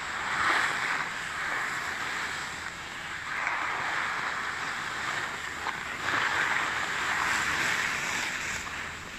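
Skis sliding over packed snow with a steady hiss and scrape that swells and eases about every three seconds, with wind noise on the microphone.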